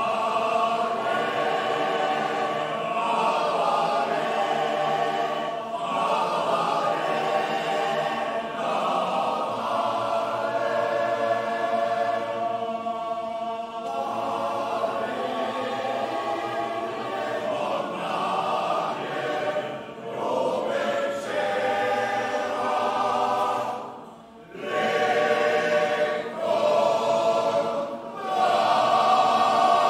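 Male-voice choir singing in harmony, with a brief break about three-quarters of the way through and the singing louder near the end.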